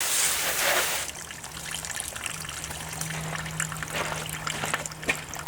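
Water spraying with a loud hiss for about a second, then trickling and dribbling as a riding mower is washed down after degreaser cleaning.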